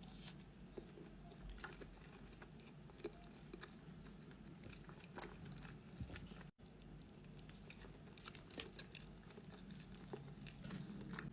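A person chewing and biting food: faint, irregular crisp clicks and crunches, several each second.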